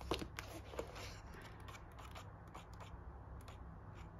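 Paper pages of a small softcover colouring book being turned and riffled by hand: quiet rustling with a series of light paper flicks.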